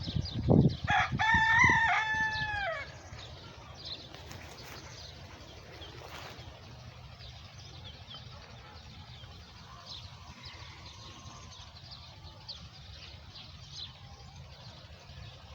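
Rooster crowing once, starting about a second in, the call dropping in pitch at its end, with a few low thumps just before it. Small birds chirp faintly in the background throughout.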